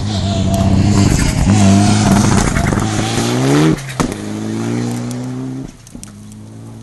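Rally car passing at full speed. Its engine revs rise through a gear, dip sharply at a gearshift about four seconds in, and climb again before fading as the car goes away.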